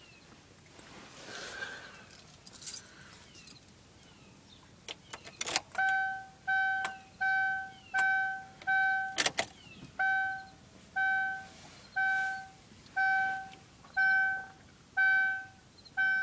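Keys jingling and clicking at the ignition of a Pontiac Wave, then the dashboard warning chime starts about six seconds in and repeats, about 0.7 s apart at first and then about once a second after a sharp click.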